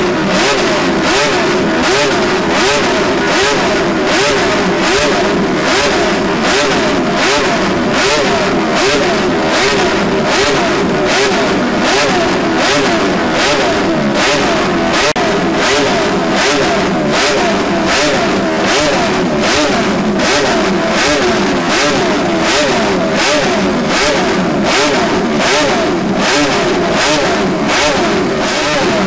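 Honda's 1960s 247cc six-cylinder four-stroke racing motorcycle engine revving hard on a stationary run-up, with a loud, rasping exhaust note that pulses evenly just under twice a second.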